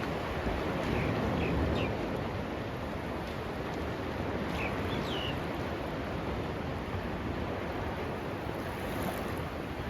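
Steady wash of sea surf mixed with wind on the microphone, with a few short bird chirps about a second in and again near the middle.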